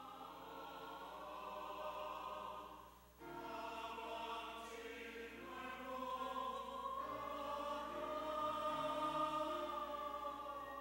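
Mixed church choir singing a Korean hymn refrain, with a short break about three seconds in before the next phrase.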